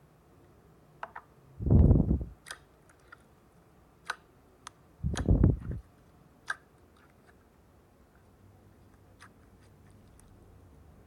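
Slime being squeezed by hand, with scattered sharp clicking pops and two louder, dull squelches about two and five seconds in.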